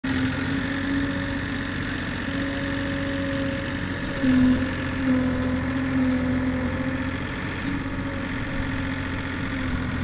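Yanmar B32 mini excavator's diesel engine running steadily while the machine digs with its arm and bucket, with a pitched tone over the rumble that comes and goes and swells about four seconds in.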